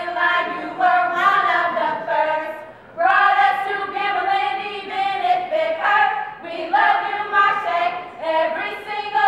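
A group of women singing together without accompaniment, in phrases of a few seconds with short breaks between them.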